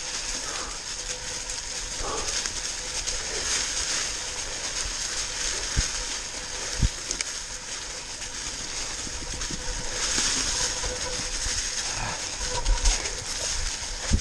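Mountain bike tyres rolling over a trail covered in dry fallen leaves: a steady crunching rustle, with a few sharp knocks around the middle and near the end.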